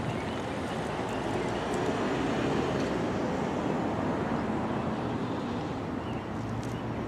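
Steady outdoor rumble of vehicle traffic, swelling slightly a couple of seconds in and then easing off.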